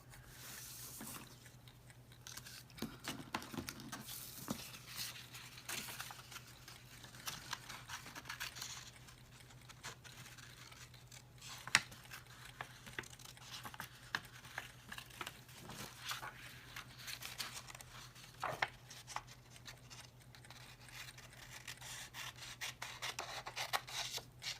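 Scissors snipping through paper in short, irregular cuts, with paper rustling as it is handled and one sharper click about twelve seconds in.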